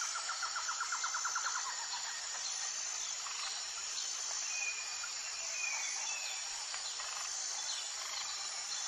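Outdoor nature ambience: a steady high-pitched insect chorus, a rapid trill in the first second or so, and a few short whistled bird notes around the middle.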